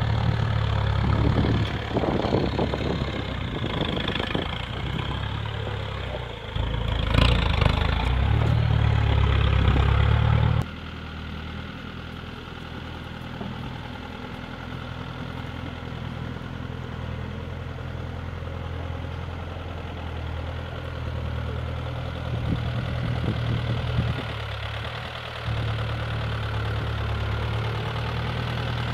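Land Rover 110 County's V8 engine running at low revs as it crawls over rough ground, heard close, with a sharp knock about seven seconds in. About ten seconds in the sound cuts abruptly to a quieter, more distant engine note as the vehicle crawls down a rutted track.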